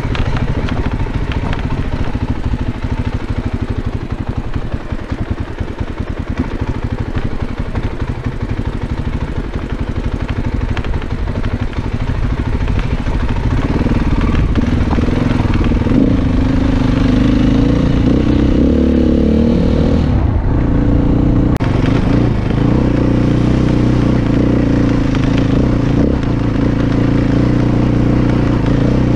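Dirt bike engine running while riding over rough rocky ground, with rattling knocks from the terrain through the first half. About 13 seconds in the engine gets louder and steadier under throttle, its pitch rising and falling before holding higher.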